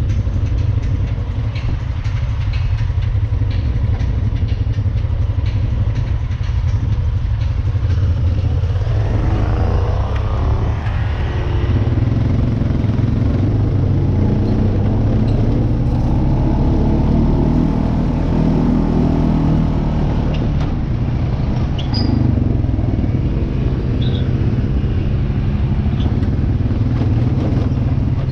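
Off-road vehicle engine running with a steady low rumble, its pitch rising and falling as it speeds up and eases off, with light rattles in the first few seconds.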